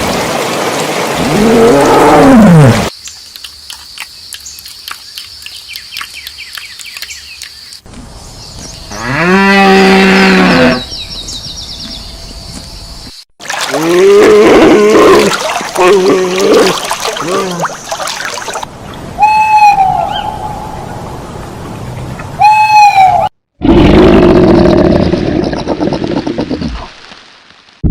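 A series of different animal calls, one short clip after another with abrupt cuts between them: a long loud call near the middle, a run of repeated shorter calls, two brief high calls, and a steadier call near the end.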